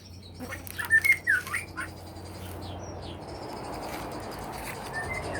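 Oriental magpie-robin singing: a loud phrase of whistled, slurred notes about half a second in, then a few thinner high notes. A hiss grows louder through the second half.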